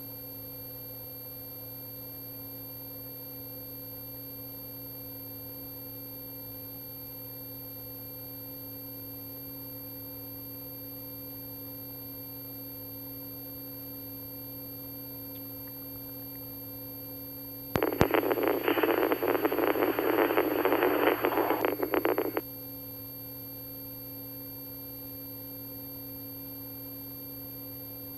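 Police radio scanner audio on an idle channel: a steady hum of several fixed tones, broken about eighteen seconds in by a burst of radio static lasting about four and a half seconds, with no voice in it.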